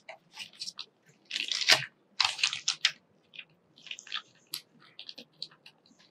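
Cardboard packaging handled and opened with disposable plastic gloves: crinkling, scraping rustles loudest in the second and third seconds, then lighter taps and rustles.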